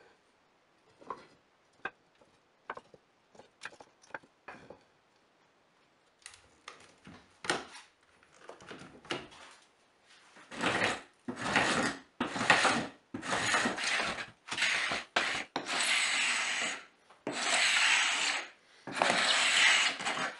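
Wooden pieces clicking and knocking as they are handled, then a run of scraping or rubbing strokes on wood, each about half a second to a second long, that grow louder in the second half.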